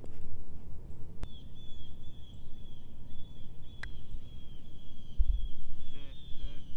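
Wind rumbling on the microphone, with a steady high chirping trill from about a second in and two sharp clicks, at about one second and about four seconds.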